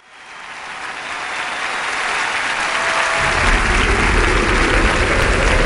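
A live crowd applauding, fading in from silence. About three seconds in, a deep bass from the backing music comes in under the applause.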